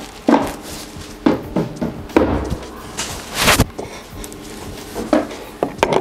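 Metal parts and mould blocks handled on a workbench: a scatter of sharp knocks and clinks, some ringing briefly, with a short rushing noise about three seconds in.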